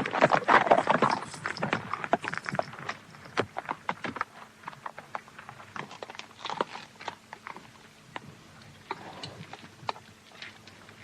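Horses' hooves clattering, loud and dense at first, then thinning out and fading away as the horses move off.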